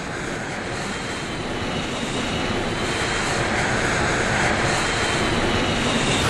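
Airliner jet engines running as the aircraft taxis: a steady rushing noise with a faint high whine, growing gradually louder.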